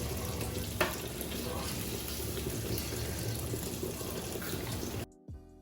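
Steady rush of water in a kitchen, with a sharp clack about a second in. It cuts off abruptly near the end, where background music with plucked notes comes in.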